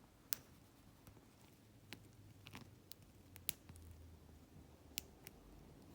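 Faint, sparse clicks of a lock pick and tension wrench working inside a Wilson Bohannan padlock: about six small ticks spread over the few seconds, the loudest about three and a half seconds in.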